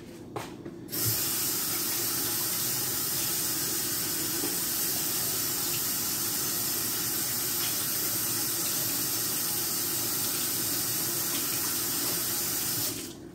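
Kitchen sink tap running in a steady stream while hands are washed under it; the water comes on about a second in and is shut off shortly before the end.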